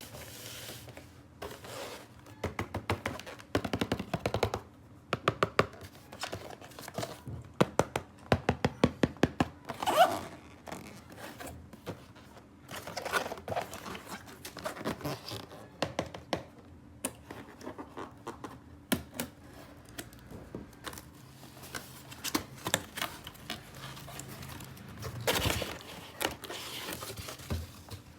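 Hands handling small plastic toy pieces and packaging: runs of quick clicks and taps, knocks, some scraping and a little crinkling.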